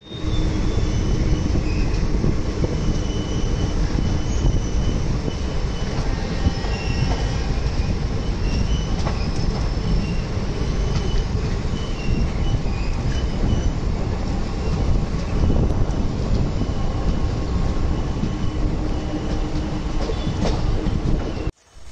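Passenger train coaches running on the track, heard from a coach window: a steady rumble of wheels on rails with intermittent high-pitched wheel squeal as the train rounds a curve. It cuts off suddenly near the end.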